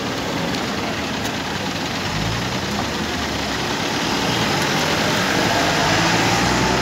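Diesel engine of a hydra crane running steadily while it holds a reinforcement cage on its hook, growing a little louder over the last few seconds.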